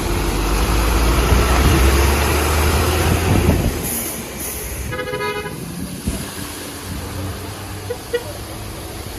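A vehicle engine rumbles loudly close by for about three and a half seconds, then fades. About five seconds in, a car horn gives one short toot.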